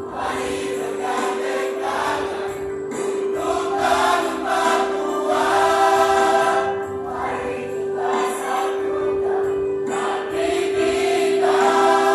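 A combined choir singing in parts over a steady held note.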